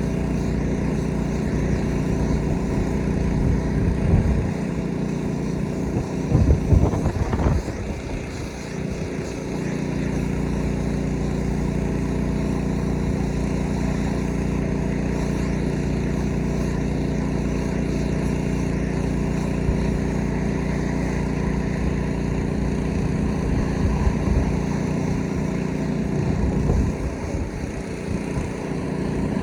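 Small petrol engine of a pressure washer running steadily, with brief louder noisy rushes about six seconds in and again near the end.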